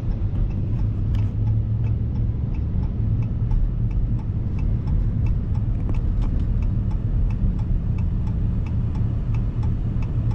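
Pickup truck driving, heard from inside the cab: a steady low engine and road rumble, with a faint regular ticking of about two ticks a second.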